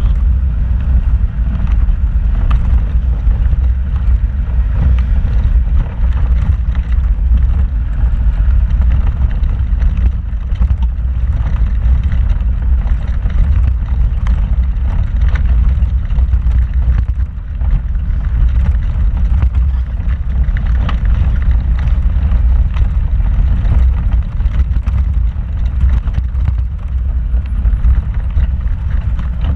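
Off-road vehicle driving slowly over a rocky trail: a steady low rumble from the vehicle, with frequent short knocks and rattles as it jolts over rocks.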